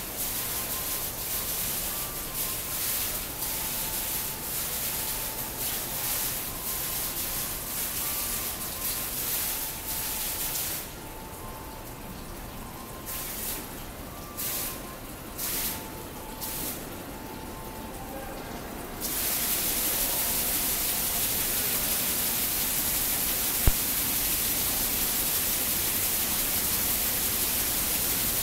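Digital water-curtain fountain: patterned water droplets falling and splashing into the basin. At first the splashing comes in uneven pulses, with a quieter, patchier stretch in the middle. About two-thirds of the way in it becomes a steady, louder hiss as the whole curtain falls at once.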